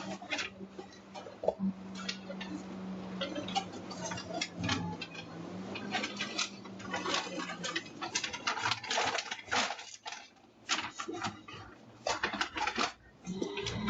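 Scattered clattering and rustling with many sharp clicks, over a steady low hum that stops about eight seconds in, as picked up by a doorbell camera's microphone.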